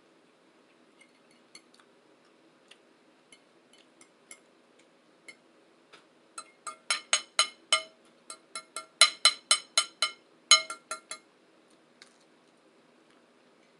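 Metal utensil clinking against a dish: a few faint ticks at first, then, about halfway through, a quick run of sharp ringing clinks, about four a second, for some five seconds.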